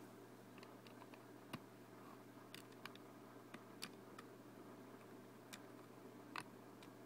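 Faint, scattered clicks of plastic Lego bricks and plates being handled and pressed together, about six in all at uneven intervals, over a low steady hum.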